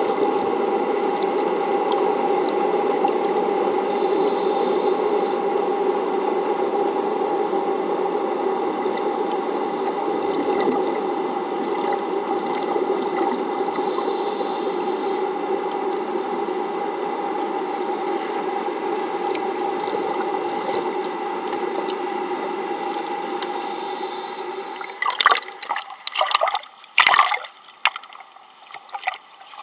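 Steady hum of the plant's running pumps heard through the water by an underwater microphone, with two brief hissing bursts about ten seconds apart. About 25 seconds in, the hum gives way to irregular splashing and sloshing as the camera breaks the surface.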